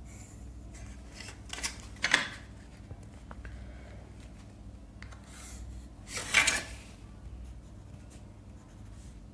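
Plastic drawing rulers moved across paper and a pencil drawing lines along them: two short scraping rubs about four seconds apart, over a faint low hum.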